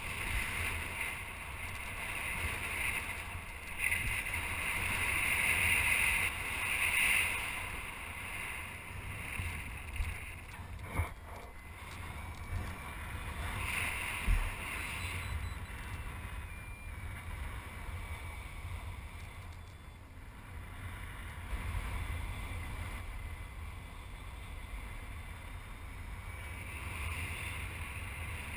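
Wind rushing over the microphone of a paraglider climbing on a winch tow: a steady low rumble under a hiss that swells and fades, louder for the first several seconds and again near the end, with a few light knocks in between.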